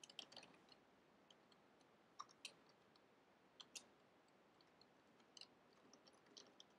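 Faint, irregular clicks of computer keyboard keys as a name is typed, over near-silent room tone.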